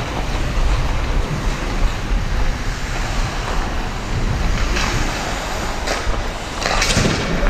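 Ice skating during a hockey game: a steady rush of wind noise on the microphone, with skate blades scraping the ice. A few louder scrapes come near the end.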